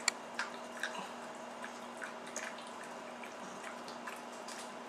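Pug licking and smacking its lips, its mouth wet from watermelon: small irregular wet clicks, with a sharper one right at the start, over a faint steady hum.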